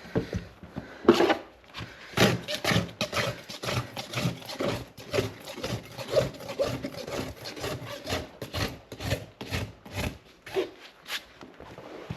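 Farrier's tool scraping a horse's hoof horn in repeated rough strokes, about three a second, the strokes settling into a steady rhythm about two seconds in.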